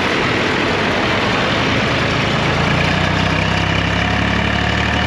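Old farm tractor engine idling steadily. About two and a half seconds in, a deeper, steady engine drone joins it and holds.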